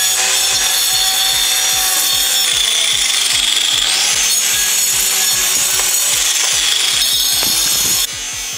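Angle grinder with a thin disc spinning at speed and cutting into a block of ice: a steady high whine with a gritty, rasping rub. The cutting sound drops off abruptly about eight seconds in.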